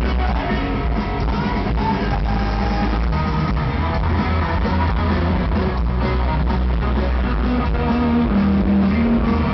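Live rock band playing loudly, heard from within the audience: electric guitar over a heavy bass low end, steady and unbroken.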